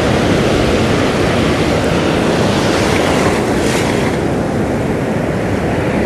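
Ocean surf: broken waves and foamy wash rushing over shallow sand, a steady noise with a heavy low rumble of wind on the microphone.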